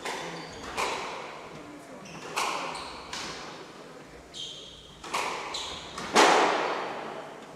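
Squash rally: the ball cracks off rackets and the court walls about six times, at uneven spacing, each hit ringing briefly in the court, the loudest about six seconds in. Short squeaks of court shoes on the wooden floor come between the hits.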